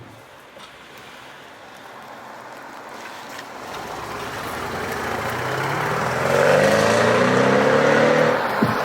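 Mercedes-Benz S63 AMG engine accelerating: quiet at first, then rising steadily in pitch and loudness over several seconds before cutting off.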